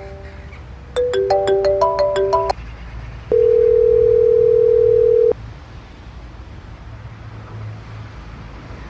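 Smartphone incoming-call ringtone: one short melodic phrase of quick bright notes, then a single steady beep held for about two seconds, then only a low hum.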